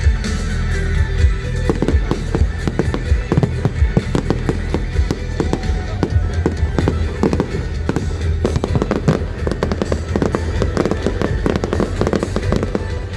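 Aerial fireworks bursting, many sharp bangs in quick succession that thicken from about a second and a half in, over loud music with a steady bass.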